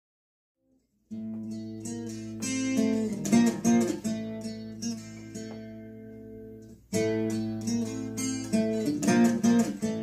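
Gibson Gospel acoustic guitar playing a solo intro riff: a held low bass note rings under picked and hammered notes above it. It starts about a second in, dies away, and the same phrase is played again near seven seconds.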